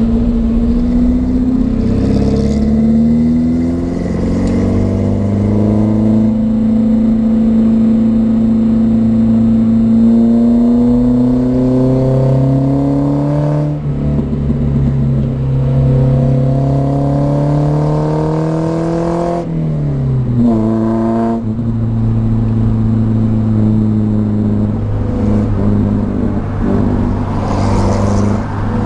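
Volvo 242GL engine and exhaust running through a new muffler while driving. The engine note climbs slowly as the car pulls, drops sharply about two-thirds of the way through, as at a gear change, then holds steadier.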